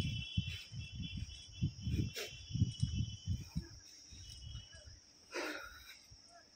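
Steady high-pitched drone of insects, with irregular low buffeting on the microphone through the first four seconds. A short brief sound comes near the end.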